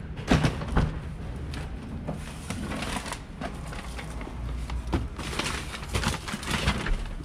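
People climbing into a car and settling in: a couple of sharp knocks about half a second in, then rustling and bumping as they handle things in the cabin.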